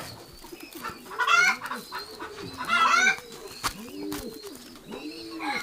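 Pigeons cooing, a low coo repeated over and over. Two louder hen calls come about a second in and about three seconds in.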